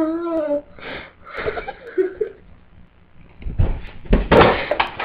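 A girl's wavering, wordless whimpering moans, then near the end a run of harsh breathy bursts mixed with bumps.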